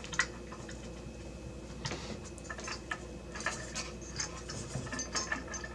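Faint scattered clicks and light scraping of a CPU heatsink-fan's four plastic legs being handled and lined up over the motherboard's mounting holes.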